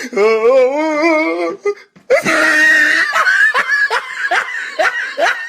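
Loud human laughter. A long, wavering, high laugh breaks off briefly about two seconds in. A harsher outburst follows, running into quick repeated short laughs.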